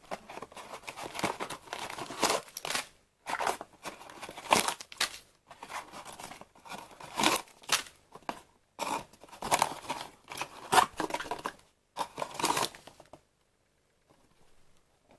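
Packaging being torn open and crinkled by hand in irregular bursts of rustling and tearing, stopping about two seconds before the end.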